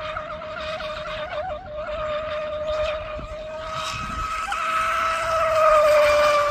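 Electric Scorpion carbon-fibre rigger RC boat running fast on a mild 4514 CNC prop during a break-in run: a high-pitched motor and prop whine. It wavers in the first two seconds, then steadies and grows louder toward the end, with its pitch dropping slightly as the boat passes.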